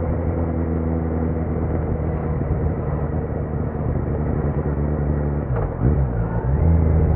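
2018 Kawasaki Z900's inline-four running through a Leo Vince muffler with the dB killer removed. The engine note drops off as the throttle eases, holds steady, then about five and a half seconds in briefly dips and rises in pitch before pulling louder again near the end.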